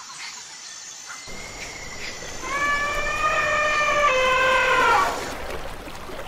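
An elephant trumpeting: one long, brassy call held on a steady pitch for about two and a half seconds, stepping down in pitch partway through. River water flows underneath it.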